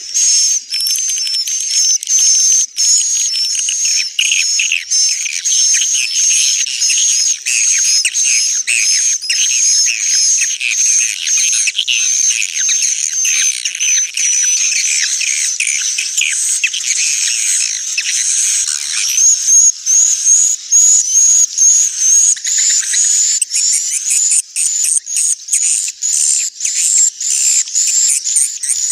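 Edible-nest swiftlet calls: a loud, unbroken chorus of rapid high chirps and twitters over a steady high trill. This is the 'inap' lure sound played in swiftlet houses to get swiftlets to roost and nest.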